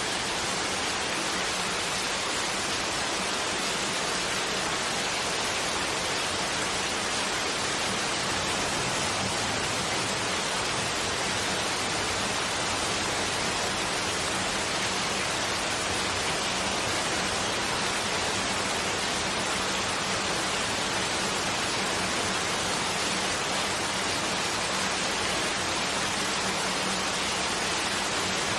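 Steady rain falling, an even hiss that does not change or break.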